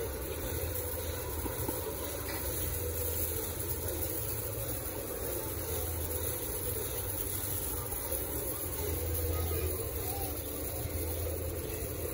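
Steady low mechanical hum with a constant hiss over it, swelling slightly about nine seconds in.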